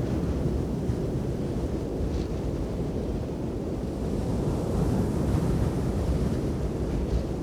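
Blustery blizzard wind buffeting: a deep, steady rumble of wind noise that swells slightly about five seconds in.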